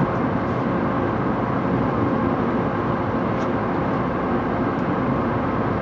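Steady interior hum of a 700 series Shinkansen passenger car standing at a station, the car's equipment running with no wheel or track noise, and a faint steady tone in it.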